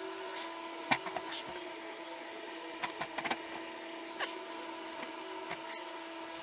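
Steady electrical hum with a few sharp clicks and light taps as snowblower parts are handled and fitted together, the sharpest click about a second in.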